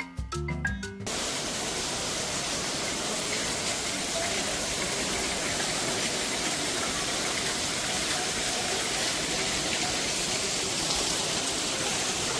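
Background music with marimba-like notes and drums cuts off about a second in. It gives way to a steady, even rushing noise.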